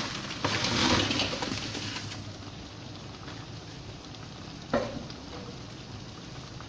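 Blocks of dry instant noodles tipped from a plastic bowl into a wok of boiling curry broth: a louder rushing splash and rustle in the first couple of seconds, then the broth bubbling steadily. A single sharp knock about five seconds in.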